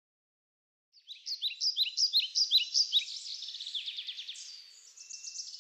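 A songbird singing: a series of quick, descending high notes starting about a second in, speeding into a fast trill and fading out near the end.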